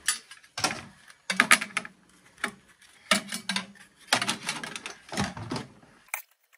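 Clattering and clunking of a cash register's metal parts being pulled and handled as it is taken apart, in about six irregular bursts.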